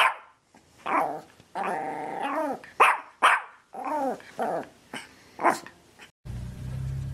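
A dog barking repeatedly: about eight short barks, with one longer, drawn-out bark about two seconds in.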